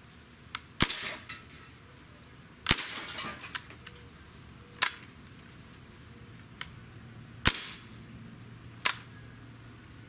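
Crosman DPMS SBR CO2 blowback BB rifle fired five times at a steady, unhurried pace, one to three seconds apart. Each shot is a sharp crack with a brief rattle after it, and a few fainter clicks fall between the shots.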